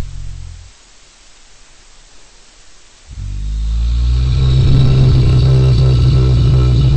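Deep, droning horror sound effect: low sustained tones fade out within the first second, leaving faint hiss, then swell back in about three seconds in and build to a loud, layered drone.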